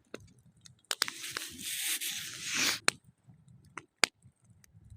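Wood campfire crackling, with sharp pops scattered through. From about a second in comes a two-second rush of hissing noise, the loudest sound here.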